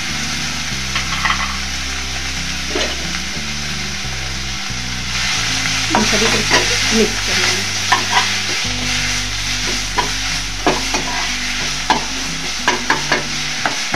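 Chopped onion, capsicum and carrot sizzling in hot oil in a steel kadhai, with a spatula scraping and tapping against the pan as they are stirred. The sizzle grows louder about five seconds in, and the spatula strikes come thick and fast in the second half.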